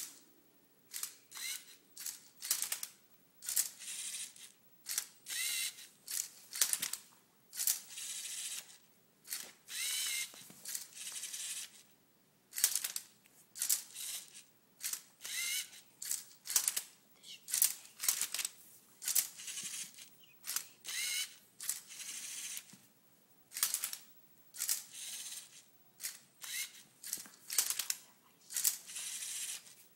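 Lego Mindstorms NXT servo motors of a Tilted Twister Rubik's Cube-solving robot, whirring in short bursts about once a second with the plastic gears and cube clattering, as the arm flips and holds the cube move after move partway through a solve.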